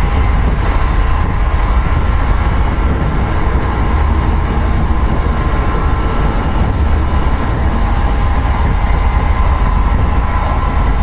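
Tokyo Metro Series 05 electric train running at a steady speed: a heavy rumble of wheels on rail with a steady faint hum over it.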